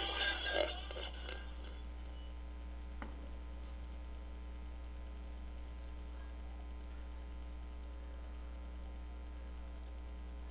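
Steady low electrical mains hum, with faint high ticks about once a second. A tail of music dies away in the first second.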